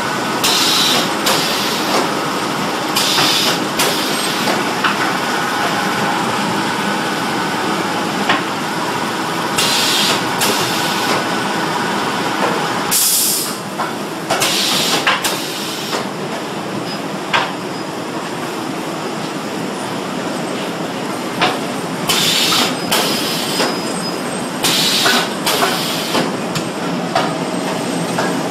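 Automatic L-bar shrink wrap packing machine running: a steady machine drone, broken every few seconds by short hisses of compressed air from its pneumatic sealing mechanism, with a few sharp clicks.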